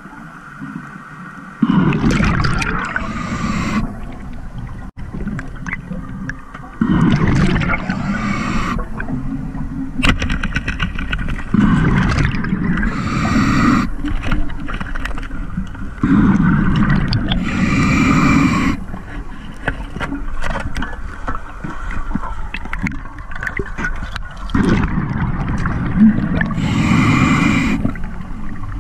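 Scuba regulator exhaust bubbles heard underwater: five loud bubbling exhalations, each two to three seconds long, coming every four to five seconds with quieter breaths in between.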